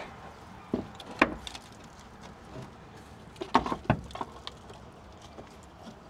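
A handful of light knocks and metal clinks as the old rear shock absorber and parts are handled. The loudest come about a second in and in a quick cluster around three and a half to four seconds.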